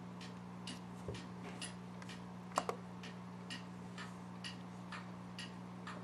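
Steady faint ticking, about two ticks a second, over a low electrical hum. About two and a half seconds in, there is a louder quick double click, typical of a computer mouse button clicking a dialog.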